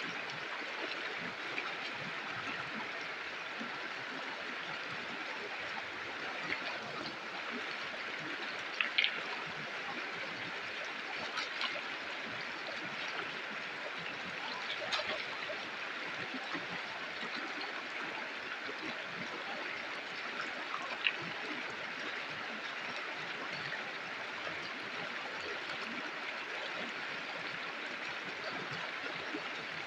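River water flowing and gurgling steadily, with a few brief louder splashes.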